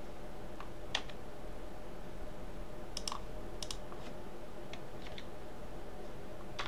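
A handful of scattered clicks from computer keyboard keys and a mouse button, some coming in quick pairs, over a faint steady hum.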